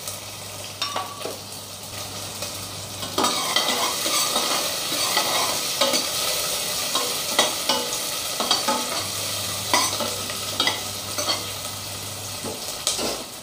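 Shallots frying in hot sunflower oil in a steel pot, sizzling while being stirred with a spoon that scrapes and clicks against the pot. The sizzle grows louder about three seconds in.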